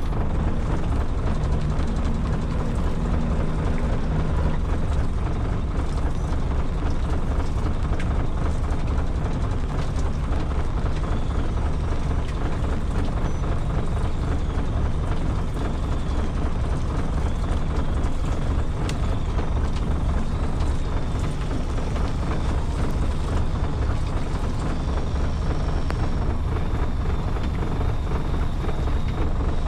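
Fishing boat's engine running steadily, a constant low rumble with no change in pace.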